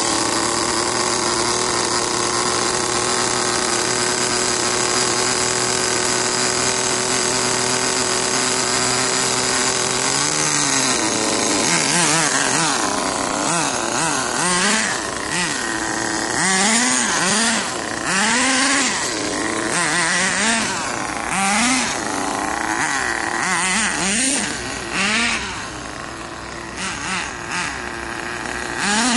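Small nitro glow engine of a Volcano SV 4WD RC monster truck running steadily at a high, even pitch for about ten seconds after being drill-started. From about eleven seconds in, the throttle is worked repeatedly, revving it up and down in quick rises and falls.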